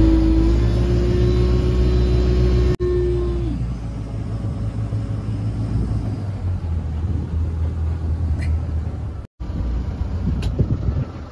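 Motorboat engine running at speed, a steady low drone mixed with the rush of wind and water. A higher steady whine over it holds for the first few seconds, then drops away.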